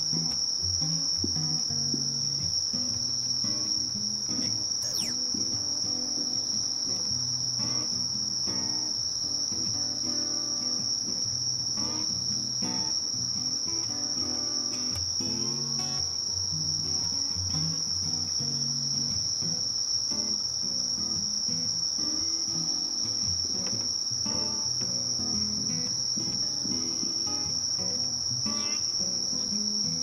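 Insects singing a steady, high, unbroken trill, the chorus of crickets typical of late-summer vegetation. Softer low notes change underneath it.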